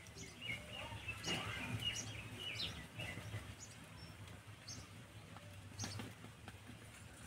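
Faint bird chirps, short and quick, mostly in the first three seconds, over a low steady hum.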